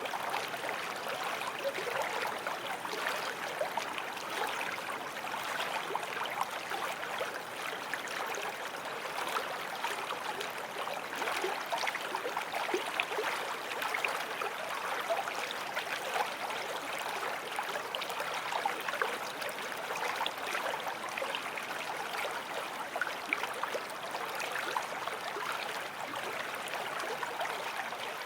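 Forest stream flowing over stones, a steady babbling and gurgling rush of water.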